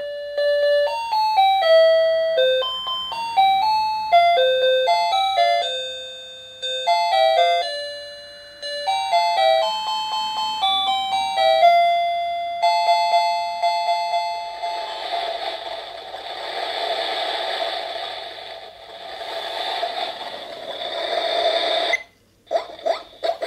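Tinny electronic chime melody from the star projector alarm clock's built-in music speaker, one beep-like note at a time. About fifteen seconds in it gives way to a denser hissing sound with a steady held tone under it, which cuts off suddenly near the end, followed by a few clicks.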